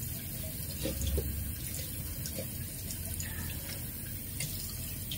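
Tap water running steadily into a bathroom sink, with light splashes as water is brought up to the face.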